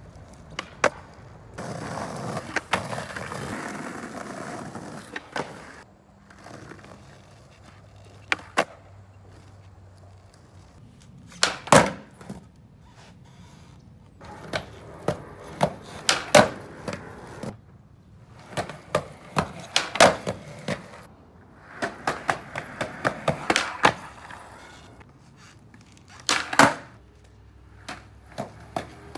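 Skateboard ollie attempts on pavement: stretches of wheels rolling, broken by sharp wooden clacks as the tail snaps down and the board slaps back onto the ground, about a dozen times.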